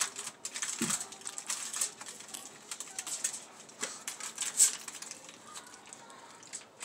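Aluminium foil crinkling in irregular small crackles and clicks as the edges of a foil packet are folded and pressed shut by hand.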